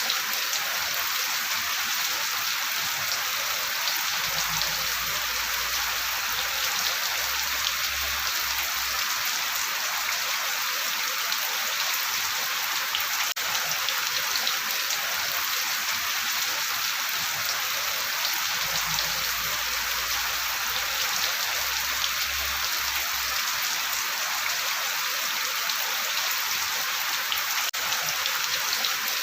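Steady rain falling, a dense even hiss of drops pattering on a surface.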